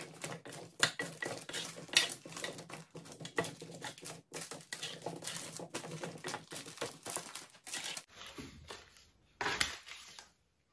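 Wooden spatula tossing parboiled potato chunks in duck fat on a parchment-lined baking tray: quick, irregular scraping and tapping against the tray and potatoes, with some crinkling of the baking paper. It ends with a louder knock and falls quiet near the end.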